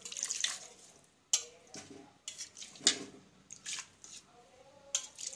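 Thin liquid poured by hand splashes into a pot of simmering bitter gourd curry. A metal spatula then clinks and scrapes against the pot several times as it stirs the curry.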